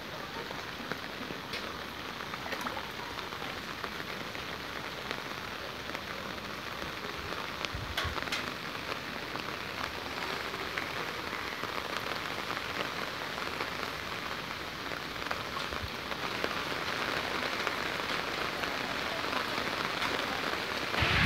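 Steady heavy rain falling on standing floodwater and surrounding surfaces, as an even hiss that grows a little louder in the last few seconds.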